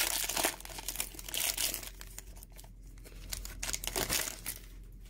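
Cellophane wrapper of a football trading card cello pack crinkling and tearing as it is pulled open by hand. The crackle is densest in the first second and a half, then thins to scattered crinkles.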